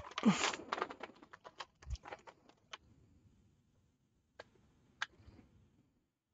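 Hands handling and sprinkling shredded cheese over a casserole in a baking dish: a burst of crinkling and rustling at the start, then a run of light ticks and taps that dies away, with two more taps later on.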